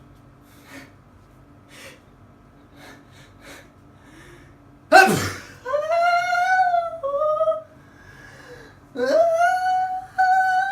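A person's staged, comic sneeze. A few faint sniffs lead up to a sudden loud sneeze about five seconds in, followed by two long, high-pitched vocal squeals whose pitch wavers.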